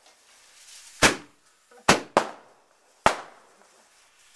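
White spider fireworks, chained on a wick, going off in turn: a hiss of sparks that builds, then four sharp bangs, the first about a second in, two close together near two seconds, and one about three seconds in.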